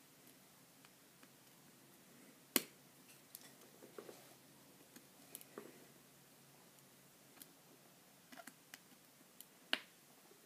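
Scattered small clicks and taps of tools and small parts being handled on an opened iPhone 5, with two sharper clicks, one about two and a half seconds in and one near the end.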